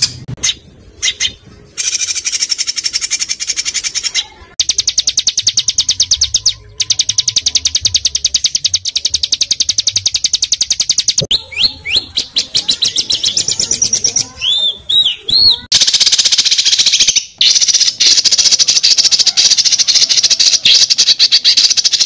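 Small songbirds singing rapid trills: long runs of very fast repeated high notes broken by short pauses. A few looping whistled notes come about two-thirds of the way in, then a dense buzzy trill that stops suddenly. This is a tutoring recording of 'tembakan' (rapid-fire) song played to train cage birds.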